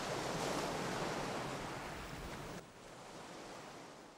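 Ocean surf washing on a beach, a steady rush that drops suddenly about two and a half seconds in and then fades out.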